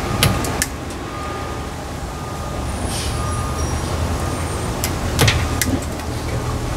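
Wire strippers clicking and snipping a few times as insulation is stripped from the end of a wire, over a steady low rumble.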